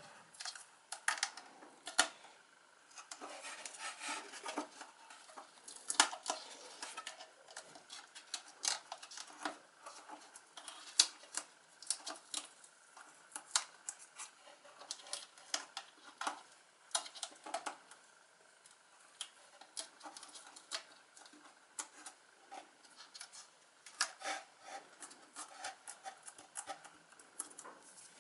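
A hand scraping, rubbing and knocking around inside the empty Creative Inspire T7900 subwoofer enclosure through the driver cut-out: irregular sharp clicks and short scrapes against the wooden box and its fittings, the loudest knocks about two, six and eleven seconds in.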